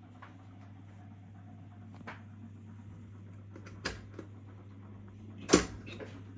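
Selection pushbuttons on a 1969 Bergmann Jupiter Saphir 120H jukebox being pressed: a few short mechanical clicks, a sharp one near four seconds in and the loudest about five and a half seconds in, over a steady low hum.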